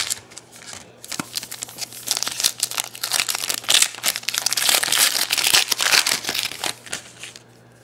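Foil wrapper of a Donruss Elite football card pack being torn open and crinkled by hand: a dense crackling with sharp crackles starting about a second in and dying away near the end.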